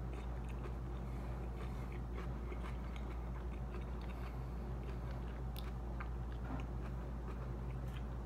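A person chewing a mouthful of jalapeño popper, with scattered small mouth clicks, over a steady low hum.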